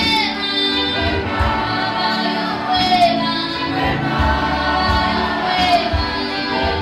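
Church choir singing a Swahili gospel song, led by a woman singing into a microphone.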